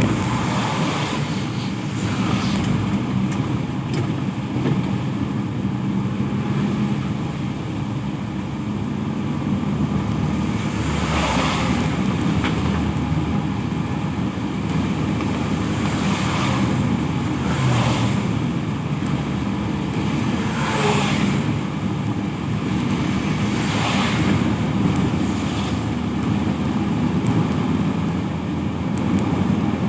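Road traffic in the rain: a steady wash of rain with a low engine hum underneath, and vehicles passing on the wet road about five times, each with a swell of tyre hiss.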